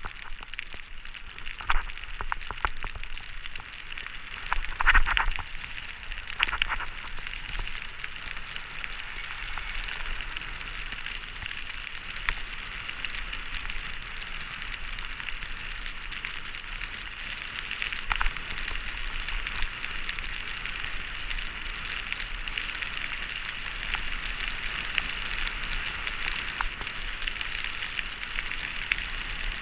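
Snowboard sliding over packed snow: a steady hiss from the base and edges, with a few louder scrapes as the edge bites in the first several seconds.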